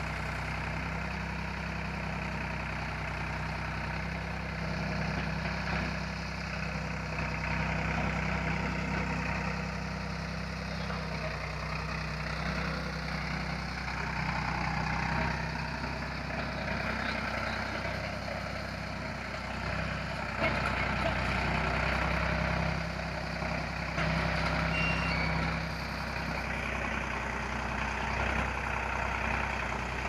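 Sonalika tractor's diesel engine running steadily under load while the BULL loader and backhoe work. It gets louder for a few seconds at a time, several times over.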